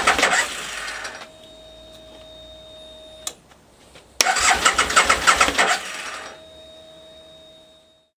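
2003 Aprilia Tuono's V-twin cranked on the electric starter twice, each burst of about two seconds failing to settle into an idle. A faint steady whine follows each attempt, with a click between them. The bike has a freshly primed fuel pump but a suspected fuelling problem.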